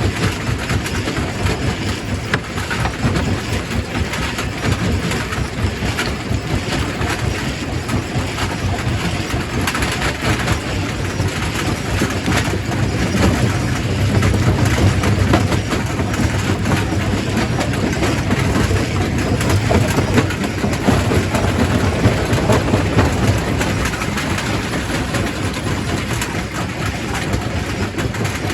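Primary rock crusher crushing stone: a steady heavy mechanical rumble with rock clattering and knocking throughout.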